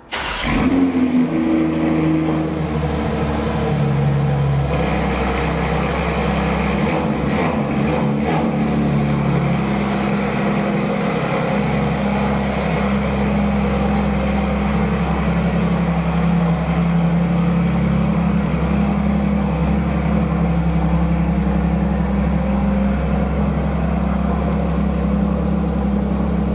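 Porsche 992 GT3's 4.0-litre flat-six, fitted with a SOUL Performance valved, catted exhaust, running at a low steady idle while the car creeps forward. The sound comes in suddenly and sits a little higher for the first couple of seconds before settling.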